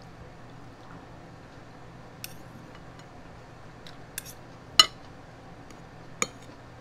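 A metal fork picks food from a plate: a few scattered sharp clinks of metal on the dish, the loudest nearly five seconds in.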